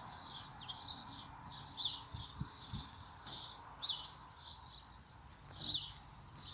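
Small birds chirping, a steady run of short, high, quickly falling notes repeated every half second or so.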